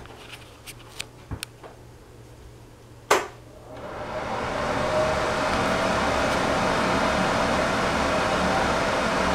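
Hampton Bay ceiling exhaust fan switched on: a sharp click about three seconds in, then the fan spins up over a second or two into a steady rush of air with a faint hum.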